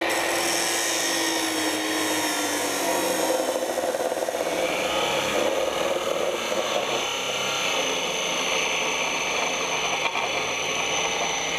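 Abrasive cut-off saw (chop saw) grinding through a steel bar: a steady, harsh hiss of the abrasive disc cutting metal over the motor's whine. The motor's tone sinks slightly over the first few seconds as the disc bites.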